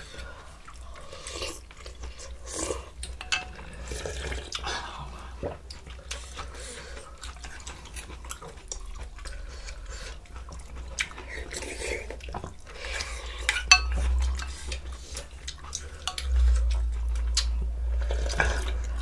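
Spoons and chopsticks clicking and scraping against bowls and an earthenware ttukbaegi of soup, with stirring and small splashes of broth. A sharper knock comes about 14 seconds in.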